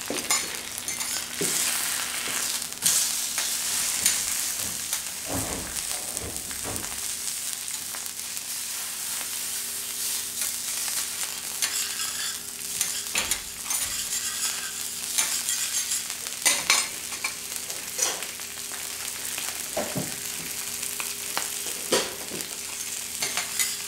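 Food sizzling on a teppanyaki griddle, with many short clicks and scrapes of metal spatulas working it.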